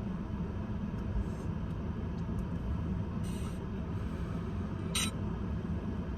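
Steady low rumble of a car heard from inside the cabin, with a few faint clicks, a short hiss a little after three seconds in and a brief sharp sound about five seconds in.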